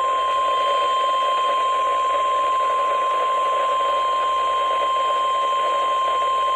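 NOAA Weather Radio 1050 Hz warning alarm tone: one steady, unbroken high beep, with a hiss beneath it. It is the signal that a warning message follows, here a severe thunderstorm warning.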